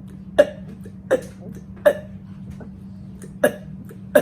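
A woman forcing out short, sharp burps in quick succession, about one every three-quarters of a second, with a longer gap after the third and another burp right at the end.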